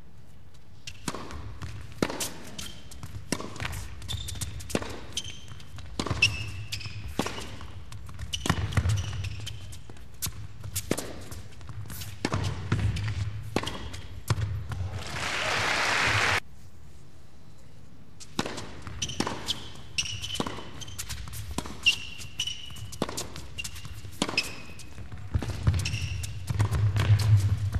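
Tennis ball being struck by rackets in rallies, sharp hits at irregular intervals with short squeaks of shoes on the indoor court. About halfway, a swell of crowd applause rises and cuts off suddenly.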